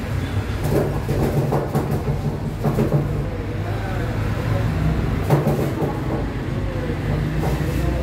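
Domestic pigeons cooing several times over a steady low hum.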